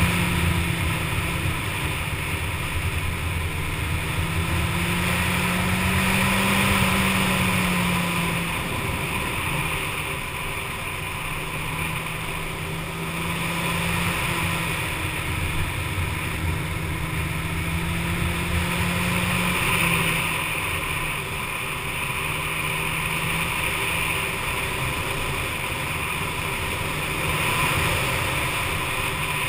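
Inline-four sport motorcycle engine running under way, its note rising and falling as the throttle changes, over a steady rush of wind noise.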